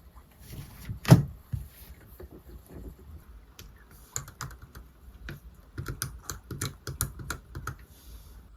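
Typing on a keyboard: runs of quick key clicks, with one louder knock about a second in.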